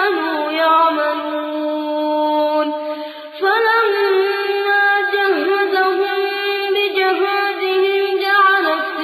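A male reciter chanting the Quran in melodic tajweed style, drawing out long held notes. A low note is sustained for about two seconds, then there is a brief breath pause about three seconds in before the next phrase begins on a higher note.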